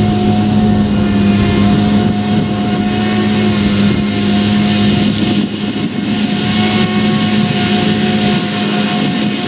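Claas Jaguar 970 forage harvester chopping standing rye: a loud, steady machine drone with a strong low hum and a fainter higher whine. A JCB 4220 tractor pulling the trailer runs alongside.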